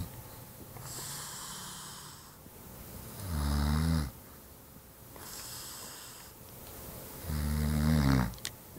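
Heavy snoring in sleep: two loud snores about four seconds apart, each lasting about a second, with quieter hissing breaths out between them.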